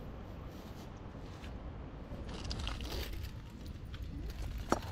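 Close handling noises, scraping and crunching, with one sharp click near the end, over a steady low rumble.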